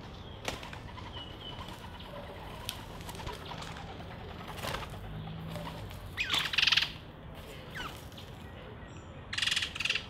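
Bird wings flapping in two short, loud flurries, about six seconds in and again near the end, amid scattered small clicks and a few faint chirps from birds feeding on seed.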